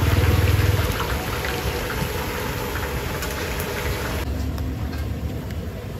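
Hot oil sizzling in a deep fryer, a fine steady crackle over a low rumble. About four seconds in, the crackle suddenly becomes much fainter.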